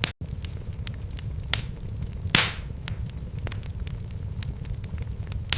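Wood fire crackling in a fireplace: a steady low rumble of flames under frequent small pops and snaps, with a louder pop and a short hiss about two and a half seconds in.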